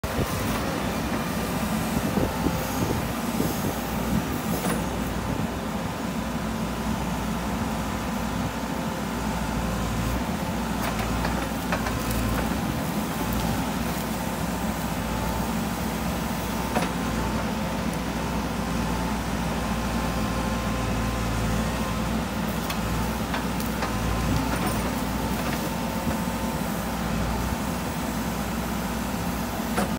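Caterpillar 426F2 backhoe loader's diesel engine running steadily under load while the backhoe digs, with a few sharp knocks scattered through.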